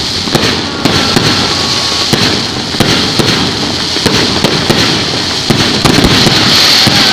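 Fireworks going off: a dense run of sharp bangs and pops over continuous crackling.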